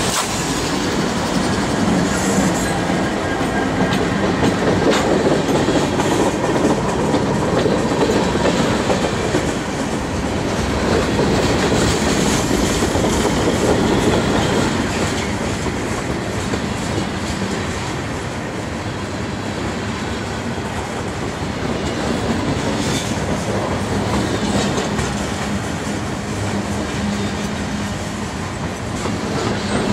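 CN freight train's cars rolling past at close range, a long steady rumble of wheels on rail.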